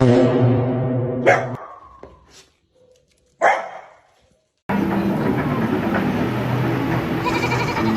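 A dog barking loudly for about the first second and a half, followed by a few sharp knocks, then a dense steady sound starting a little past halfway.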